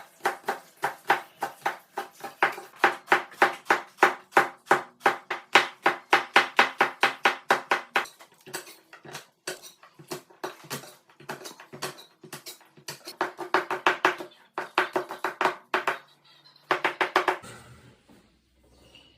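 Kitchen knife chopping quickly on a cutting board, about four strokes a second, in long runs broken by short pauses about eight seconds in and again near the end.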